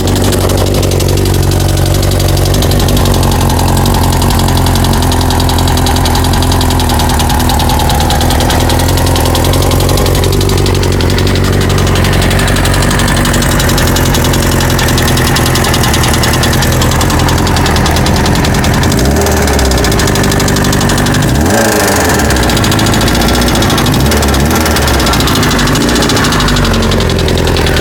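1998 Kawasaki ZX6R inline-four engine idling with a knocking noise, which the owner wonders is rod knock and was told may be the valves or the cam chain. In the second half the engine is revved up and back down a few times.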